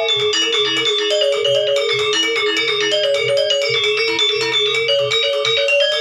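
Gamelan music: rapid, interlocking struck notes on metal-keyed instruments with a bright, bell-like ring over a lower repeating pulse.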